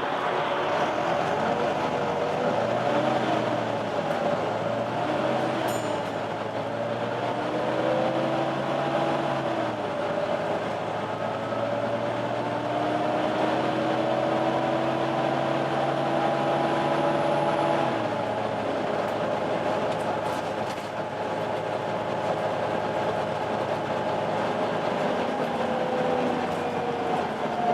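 Volvo B9TL double-decker bus running, its six-cylinder diesel and the vacuum-cleaner-like 'hoover' whine of its cooling fan rising and falling in pitch as the bus pulls and changes speed. The pitch holds steady for several seconds, then drops about two-thirds of the way through.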